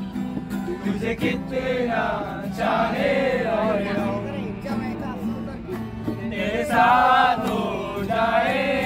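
Music with voices singing sung phrases over a steady sustained accompaniment.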